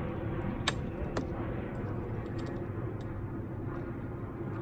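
Plastic cable clips snapping onto a lawn mower's handle: two sharp clicks about a second in, then a few fainter ticks, over a steady low background noise.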